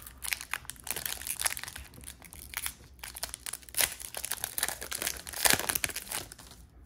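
Foil trading-card pack wrapper crinkling and tearing as it is peeled open by hand, in irregular crackles with louder rips about four seconds in and again about five and a half seconds in.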